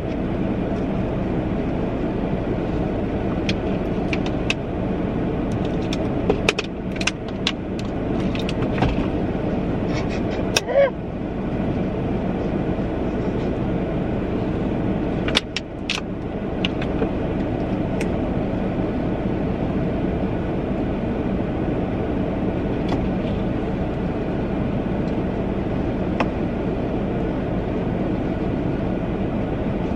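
Steady running hum of a parked car, heard from inside the cabin. Scattered light clicks and rustles fall in the first half, as a tissue is unfolded and handled.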